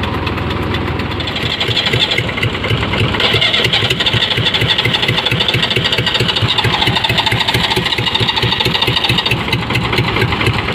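Mahindra B 275 DI tractor's diesel engine being started and running with an even beat, getting louder from about two seconds in.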